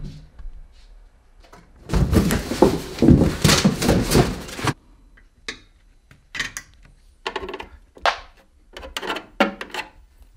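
Unpacking and assembling a Runner N1 2.5 treadmill. There is a loud stretch of rustling and bumping for a few seconds about two seconds in, then a string of short knocks and clunks.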